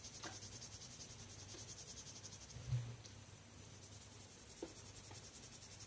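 Faint scratching of a soft red pastel pencil being stroked across grainy watercolour paper, with a soft knock about two and a half seconds in.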